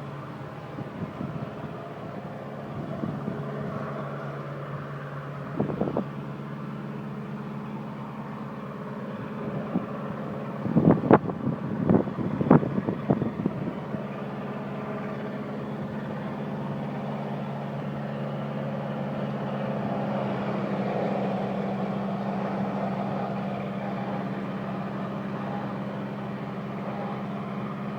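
Heavy machine vehicle's diesel engine running steadily, with a cluster of knocks about eleven seconds in.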